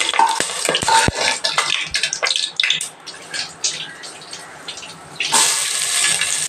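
A metal spatula stirs and scrapes whole spices frying in hot oil in an aluminium pressure cooker, with clicks and clinks on the pan for the first few seconds. About five seconds in, sliced onions drop into the hot oil and set off a loud, steady sizzle.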